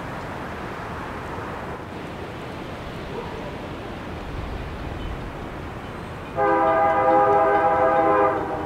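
A diesel freight locomotive's horn sounds one blast of about two seconds near the end, several chime notes together, over a steady rumble from the approaching train.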